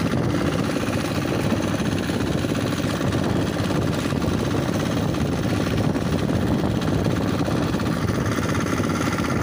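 Small wooden fishing boat's engine running steadily while underway, a loud, fast, even pulse with no change in speed.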